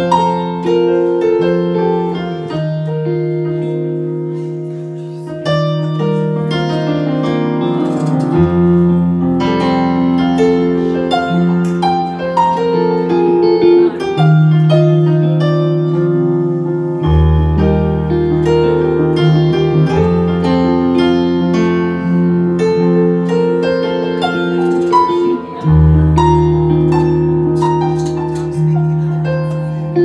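Live electric keyboard and electric guitar playing together: held chords and low bass notes that change every few seconds, under a busy line of higher notes.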